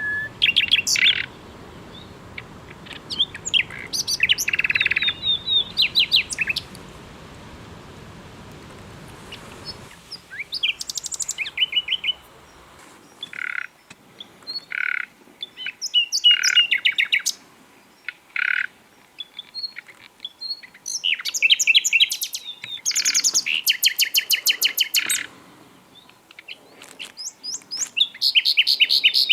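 Songbirds singing: repeated phrases of fast trills and chirps, with short gaps between them. A low steady hiss underneath cuts off about ten seconds in.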